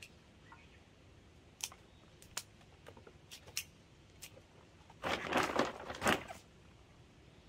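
Pruning shears snipping hydrangea stems in a few sharp clicks, then about five seconds in a plastic potting-soil bag crinkling and rustling for about a second as it is moved.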